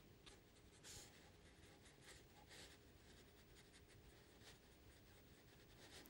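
Faint swishes of a fine watercolour brush stroking across paper, several short strokes, the clearest about a second in.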